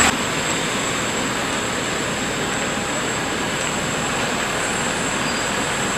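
Steady rushing turbine noise from a parked jet airliner on the apron, with a thin high whine held throughout.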